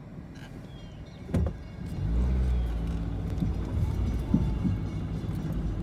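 A car's engine speeds up as it pulls away, heard from inside the cabin, after a sharp thump just over a second in; a few short knocks follow.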